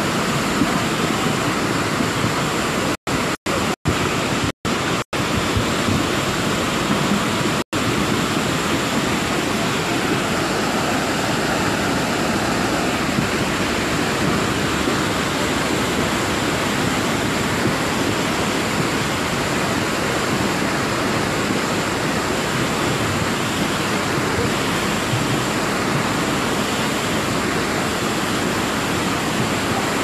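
Muddy floodwater of a swollen river rushing past in a steady, loud torrent. The audio cuts out for a split second several times in the first eight seconds.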